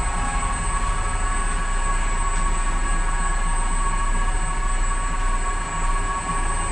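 Lift cab travelling in its shaft: a steady mechanical hum with constant high-pitched whine tones from the drive.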